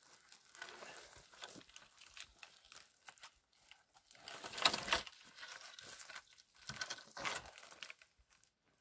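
Rustling and crunching in dry grass and twigs, with footsteps, as a lashed three-pole wooden tripod is lifted and stood upright. The loudest crunch comes a little over four seconds in, and another comes near seven seconds.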